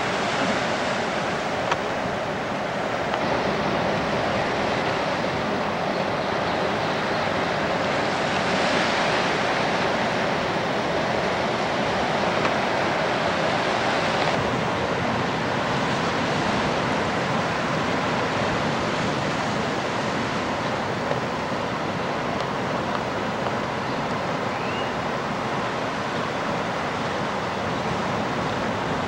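Ocean surf: a steady rush of waves breaking and washing in, with a faint short rising chirp about three-quarters of the way through.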